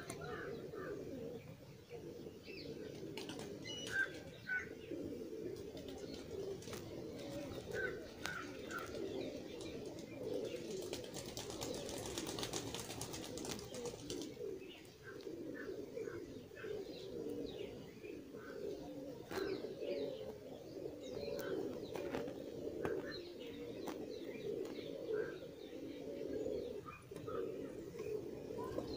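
Birds in the background: a continuous low cooing with scattered short chirps, and a soft hiss for a few seconds in the middle.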